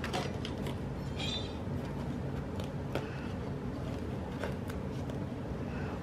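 Faint handling of sticker sheets and paper: a few small scattered clicks and a short crackle about a second in, over a steady low background hum.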